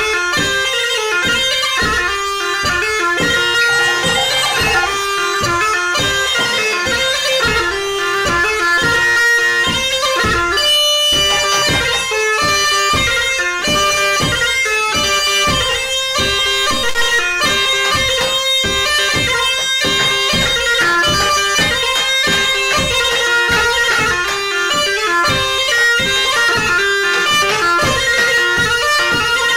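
Background music: a wind-instrument melody over a steady beat.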